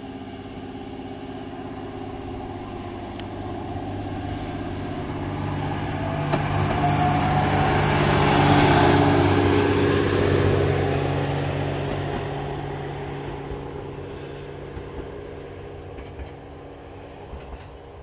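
JR Hokkaido H100 'DECMO' diesel-electric railcar pulling away. Its diesel engine drones steadily and an inverter whine rises briefly, growing louder as the train passes about eight or nine seconds in, then fading into the distance.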